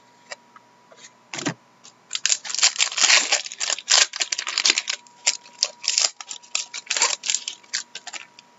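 A trading card pack's wrapper being torn open and crinkled by hand, with cards rustling against each other. It is a rapid, irregular run of crackles that starts about two seconds in.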